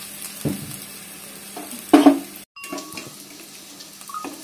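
Sliced capsicum, onions, carrots and peanuts sizzling steadily in hot oil in a kadai, with a couple of short knocks, the loudest about two seconds in.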